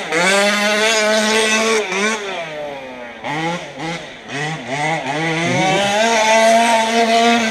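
Modified 38cc two-stroke engine of a large-scale RC car running at high revs. About two seconds in the revs drop, then come several short throttle blips, and near the end it is held at high revs again.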